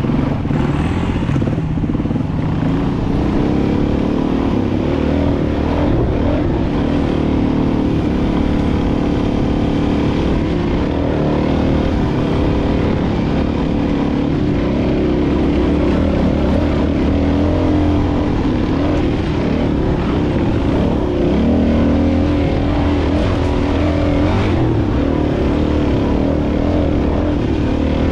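Dual-sport motorcycle engine running continuously, its pitch rising and falling as the throttle is worked.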